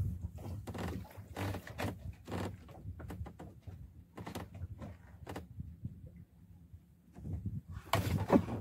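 Irregular knocks and thuds aboard a small fishing boat, over a low steady rumble, growing louder near the end.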